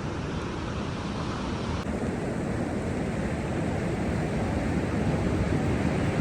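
Steady rushing noise with no distinct events, of the kind made by wind, surf or road noise.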